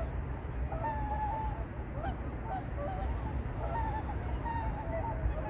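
Whooper swans calling: a run of short pitched calls from several birds, overlapping and repeated every second or so, over a steady low rumble.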